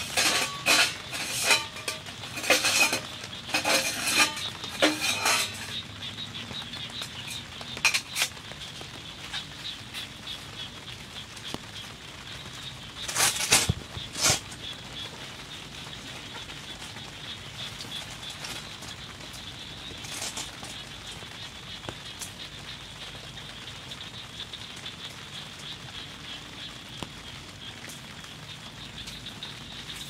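Steady rain pattering. Over it comes a run of knocks and rustles in the first five seconds, a single sharp click about eight seconds in, and another short burst of handling noise about thirteen seconds in.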